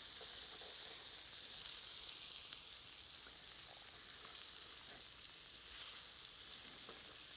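Seasoned redfish pieces frying in oil on a hot Presto electric griddle after being turned: a steady, light sizzle, with a few faint touches of the spatula.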